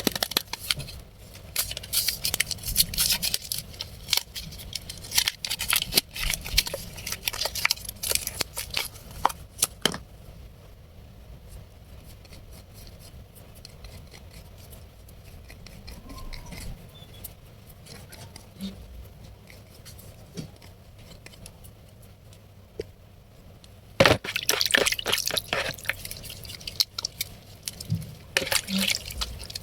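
Wet bar of blue Medicare soap being lathered: a dense run of crackling, squishing foam sounds that stops about ten seconds in and starts again after about fourteen quieter seconds.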